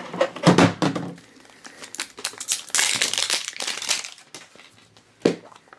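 A plastic blind-box capsule is handled and opened, with knocks and clicks from its hard shell. Then comes a burst of crinkling as the clear plastic bag inside is pulled out, and one sharp click near the end.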